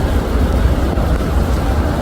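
Loud, steady rushing noise with a deep rumble: a rainstorm, with wind buffeting the microphone.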